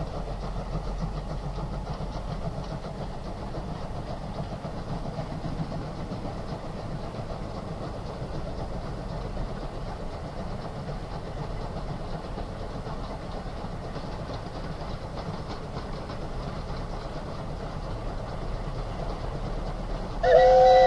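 South African steam train running, a steady noise without a clear beat. Near the end a steam whistle starts suddenly, loud and held, sounding two tones together.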